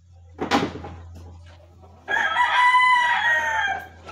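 A sharp knock about half a second in, then a rooster crows once, a long call of nearly two seconds.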